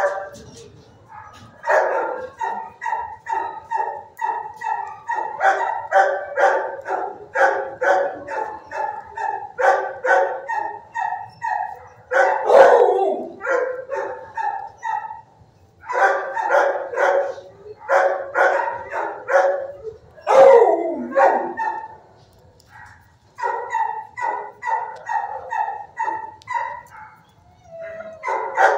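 Shelter dogs barking in fast runs of repeated barks, broken by short pauses, with a couple of longer calls that fall in pitch about twelve and twenty seconds in.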